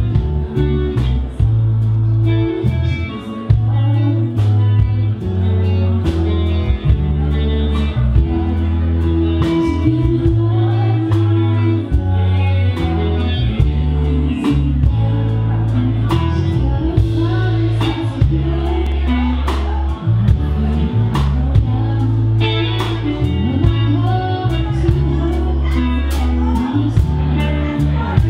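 A song played by a band: electric guitar, bass and drums on a steady beat, with singing.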